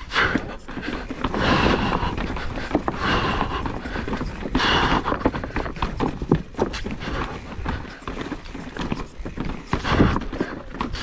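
Specialized Stumpjumper Evo mountain bike clattering and rattling over a rock garden: a rapid, irregular run of knocks from the tyres, frame and chain striking rock.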